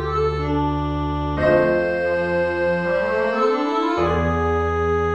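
Instrumental keyboard music with long held organ chords. The chords change about a second and a half in and again about four seconds in, with a rising line of notes just before the second change.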